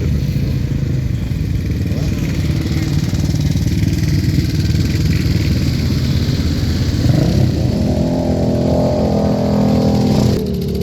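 ATV engine running with a steady low rumble, its pitch rising as it revs up about seven seconds in and staying up.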